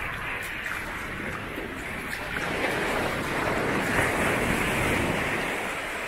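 Sea surf: a wave breaking and washing up the beach. It swells to its loudest a little past halfway, then eases off.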